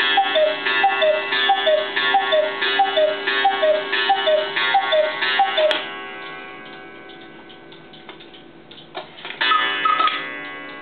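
Cuckoo-and-quail clock striking the hour: the cuckoo's falling two-note call repeats about twice a second, roughly a dozen times. It stops with a click about six seconds in, leaving the clock ticking, and near the end a quick three-note quail call sounds.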